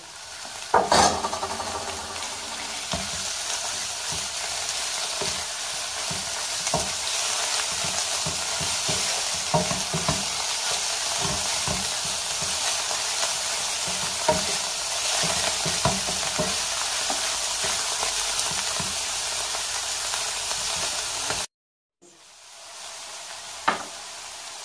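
Chopped leeks and onions sizzling in oil in a nonstick frying pan, stirred with a wooden spatula that gives frequent light knocks and scrapes against the pan. About 21 seconds in the sound cuts out briefly and returns quieter, mostly sizzle with a single knock.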